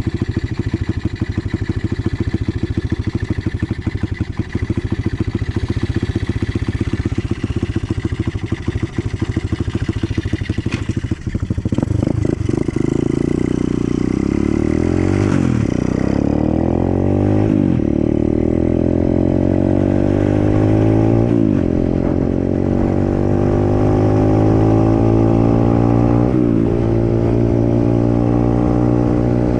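125cc dirt bike engine running at low speed for about twelve seconds, then accelerating up through the gears: its pitch climbs and drops sharply at each of about four upshifts.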